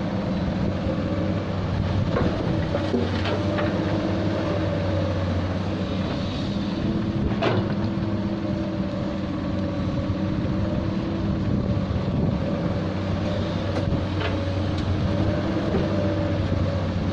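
Diesel engine of a hydraulic excavator running steadily while digging, with a few sharp metallic clanks, about three s, seven and a half s and fourteen s in.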